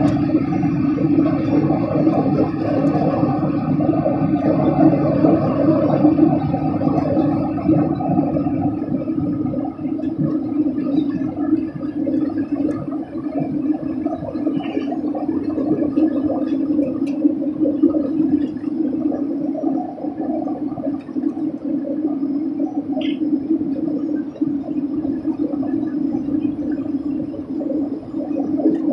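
Steady drone of an airliner cabin in flight: engine and airflow noise with a strong low hum.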